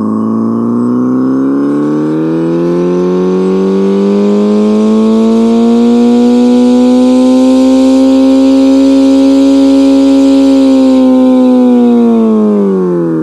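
Homemade optical engine-sound synthesizer (a spinning patterned disc read by an infrared photoreflector) imitating a four-cylinder engine with an equal-length exhaust. The engine note climbs slowly and steadily in pitch toward its top revs, holds there, and starts to drop near the end, with a hiss behind it.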